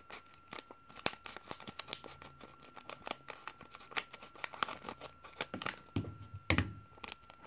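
Scissors snipping across the top of a crinkly plastic-foil LEGO minifigure blind bag, with the bag crackling as it is handled. A louder knock comes near the end.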